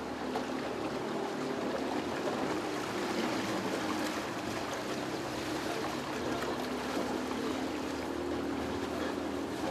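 Motor of a wooden riverboat running steadily under way, with water rushing along the hull.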